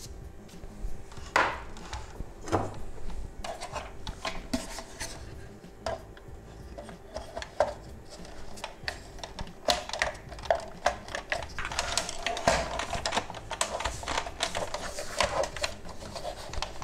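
Hard plastic parts of a car instrument cluster being handled and fitted together: irregular clicks, taps and rubbing of the cover and housing, coming thicker in the second half.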